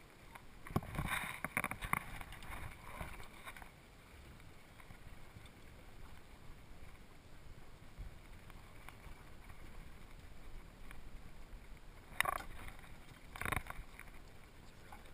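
Muffled handling noise of scuba gear on a boat deck: a few short clusters of knocking and rustling, about a second in and again near the end, over a low steady wind-and-water background.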